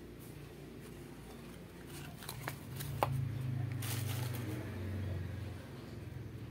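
Hands pulling a cardboard sleeve off a small metal-framed loudspeaker and handling it: rustling and a few clicks, the sharpest about three seconds in, with a short rustle a second later. A low hum swells through the middle.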